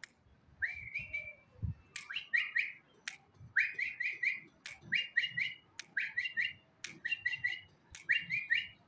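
A man whistling the recall call for a hand-trained pigeon: quick runs of two to four short rising whistles, each run opened by a sharp click, repeated about once a second.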